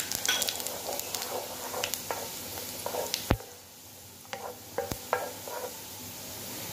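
Chopped garlic and cumin seeds sizzling in hot ghee for a dal tadka, with a wooden spatula stirring and scraping through them. There are two sharp knocks a little past halfway.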